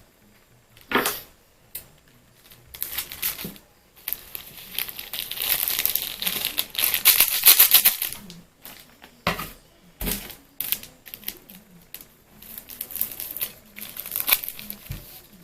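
Small plastic Indomie seasoning sachets crinkling as they are torn open and squeezed out, in irregular bursts of rustling that are loudest about halfway through, with a few sharp taps.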